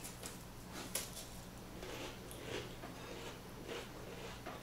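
Faint eating sounds: crisp crackers being chewed, with small clicks and rustles of hands and food on the table, the sharpest click about a second in.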